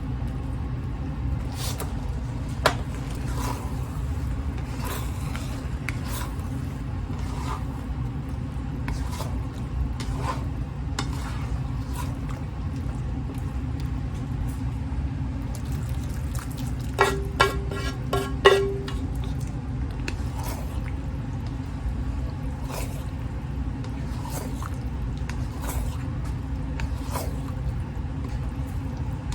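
Thick curry simmering in a pot: soft pops every second or so over a steady low hum. Four short beeps come about two-thirds of the way through.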